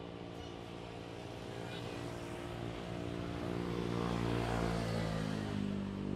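Twin-engine jet airliner on its landing rollout: a steady engine rumble with a droning hum that grows louder, loudest about four seconds in.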